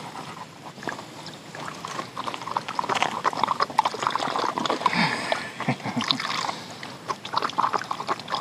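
A dog lapping water in quick, irregular splashy laps, with water sloshing.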